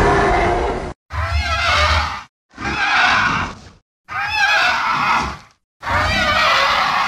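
Spinosaurus sound effects: five separate short dinosaur calls, each about a second long and bending in pitch, with dead silence between them.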